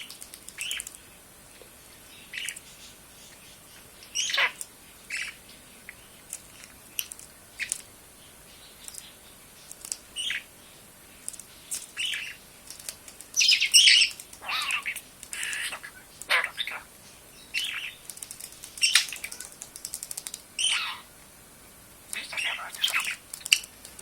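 Budgerigar chirps and chatter: short scattered calls, with a louder, denser run of chattering a little past halfway.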